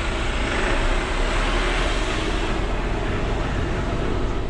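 Large diesel expedition truck's engine running as it drives off at low speed, heard from inside the cab as a steady low rumble mixed with cab and road noise.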